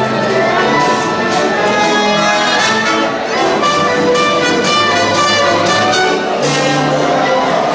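Youth symphony orchestra playing: violins with French horn and flute, holding and changing sustained notes.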